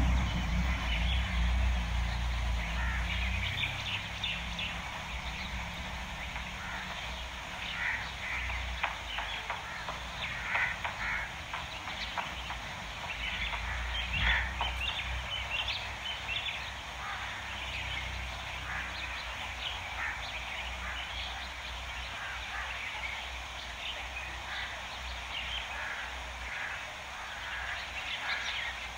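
Small birds chirping in short, scattered calls throughout, over a steady low rumble that is loudest in the first few seconds.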